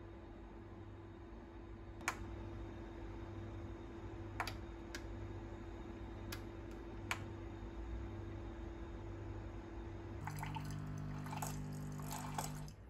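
illy capsule coffee machine, powered through a voltage transformer, on a cleaning cycle: a few sharp clicks over a steady low hum, then its pump buzzes for about two and a half seconds with water running into the glass and cuts off suddenly, the machine failing again.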